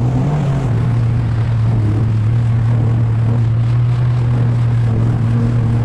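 Sea-Doo GTI 130 jet ski's three-cylinder four-stroke 4-TEC engine running at a steady cruising speed, its drone holding one pitch, with wind and water spray rushing past.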